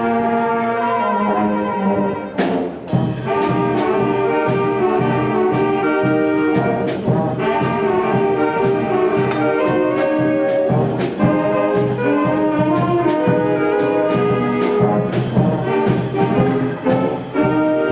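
A brass band of trumpets, trombones and tubas playing a tune, with a steady beat.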